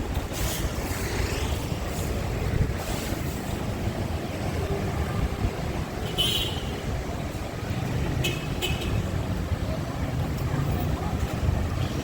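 Steady rumble of city street traffic with wind on the microphone, and two brief high-pitched sounds about six and eight seconds in.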